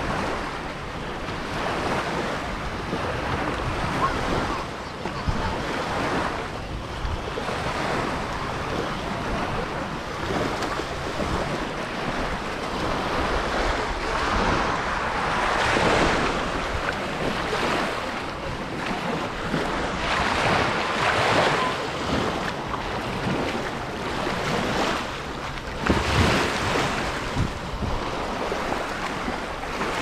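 Sea surf washing onto the beach, the noise swelling and ebbing every few seconds, with wind buffeting the microphone.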